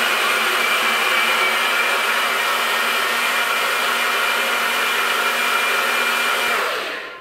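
A single-serve bullet blender's motor runs steadily at full speed, liquefying a green smoothie, then winds down and stops near the end.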